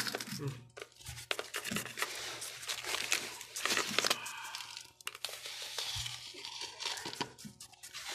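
Gritty, pebbly potting soil scraped and scooped with a small plastic scoop around a cactus in a plastic pot, in a run of irregular rustling scrapes and small clicks.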